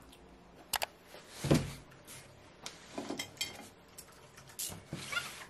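Scattered light clinks and knocks of ceramic tableware and cutlery: a cup, plate, knife and fork. The loudest is a dull knock about a second and a half in.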